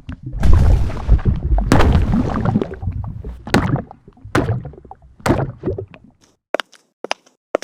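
Wet stomach gurgling and sloshing sound effects: a long deep rumbling slosh for the first three seconds, then single squelches about a second apart, and a few short sharp clicks near the end.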